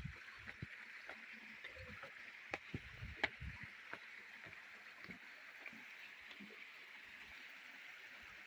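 Faint steady rush of falling and running water from a waterfall stream, with scattered footsteps and small knocks during the first few seconds.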